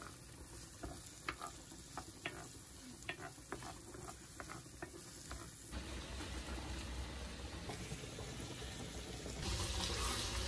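Kitchen utensil clicking and scraping in a pot while pasta is stirred. A steady hissing cooking noise takes over about six seconds in and grows louder near the end.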